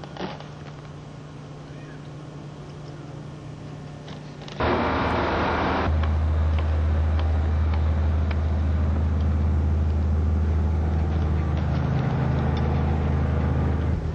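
A quiet steady hum for the first few seconds, then, about four and a half seconds in, a sudden switch to a much louder sound aboard a moving ferry: a short rush of noise, then the ship's engines running with a deep steady drone.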